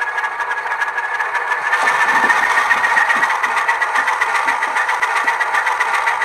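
Diesel engine sound of an Alco S1 switcher played through the small speaker of an ESU LokSound Select Micro decoder in an HO-scale model, a steady rhythmic chugging. Its pitch and loudness step up slightly about two seconds in.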